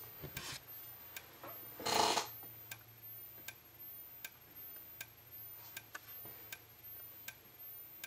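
Wheelock MT-24-LSM's xenon strobe flashing, with a sharp click at each flash about every three-quarters of a second. Each click is followed by a faint high-pitched whine rising as the strobe's capacitor recharges, audible on this older strobe, which flashes a little faster than usual. A brief louder noise comes about two seconds in.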